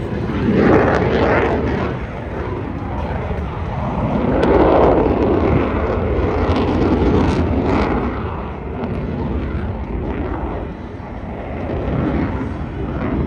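Danish Air Force F-16 fighter jet flying a display pass: loud, rumbling jet engine noise that swells about a second in and again around five seconds in, then eases somewhat.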